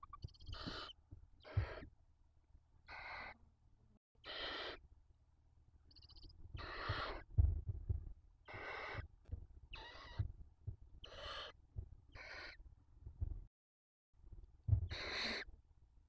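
Barn owl chicks giving harsh, rasping begging hisses, about ten calls a second or so apart, while being fed. Low thuds from movement on the nest floor sound underneath.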